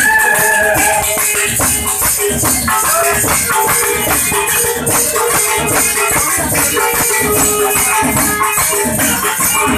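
Loud live devotional music: a fast, even beat of jingling, rattling percussion over a held steady note, with a wavering melodic line near the start that fits the man singing into the microphone.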